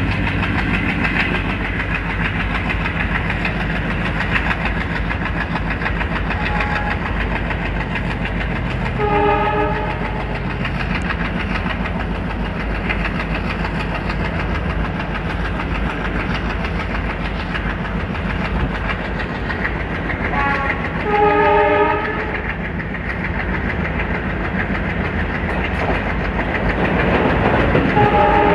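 WDM3A diesel locomotive chugging as it hauls ICF coaches, with wheels clacking over rail joints and the coaches rattling. A multi-tone locomotive horn sounds briefly about nine seconds in and again around twenty-one seconds. Near the end a train on the adjacent track passes close, and the noise grows louder.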